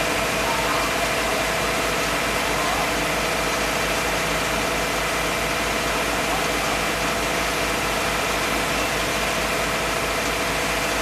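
A steady mechanical drone like an idling engine, with a constant tone running through it.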